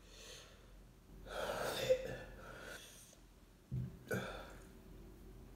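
A man breathing hard through his mouth from the burn of very spicy noodles: a long, loud breath about a second and a half in, then two short, sharp breaths near four seconds.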